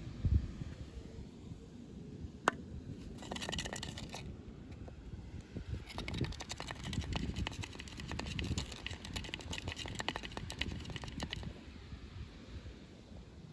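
Plastic toy packaging handled and crinkled: a single sharp click about two and a half seconds in, then a short burst of crackling and a longer stretch of dense crackling from about six to eleven seconds, over low rubbing of hands on the box.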